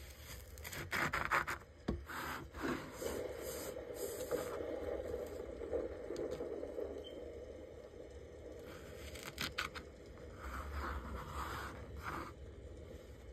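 Kinetic sand scraping and crumbling as shape cutters are pressed through it and the loose edges are scraped away, in several short bursts.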